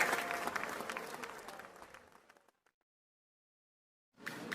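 Crowd applause, many hands clapping, fading out over about two and a half seconds into complete silence; a new burst of noise cuts in near the end.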